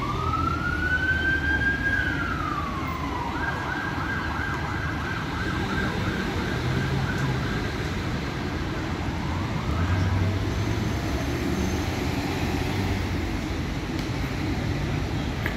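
An emergency vehicle siren: one slow wail rising and falling over about three seconds, then a fast yelp for about five seconds before it fades. Steady road traffic noise runs underneath.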